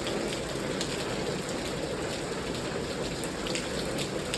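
Heavy rain pouring down steadily, a dense even hiss with scattered sharper drop ticks, rain still falling hard after easing off a little.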